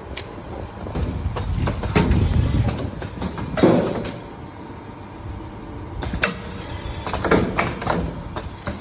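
Automatic premade-pouch vacuum packing machine running, its mechanism making irregular clacks and knocks over a low rumble. A louder rushing burst comes about three and a half seconds in, and a quick run of clacks follows later.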